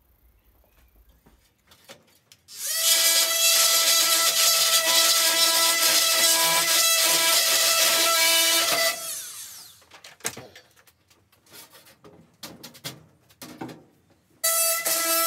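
An electric power tool's motor runs steadily at speed for about six seconds and then winds down, followed by a few clicks and knocks of handling; near the end the motor starts up again.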